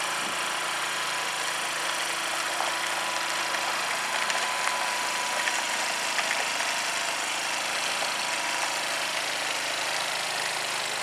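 Craftsman snowblower's small engine running steadily. It keeps running without choking out, with its carburetor freshly rebuilt.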